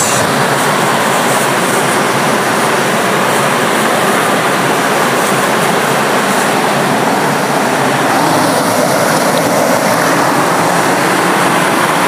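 Small waterfall rushing, close by: a loud, steady hiss of falling water pouring into a rock pool.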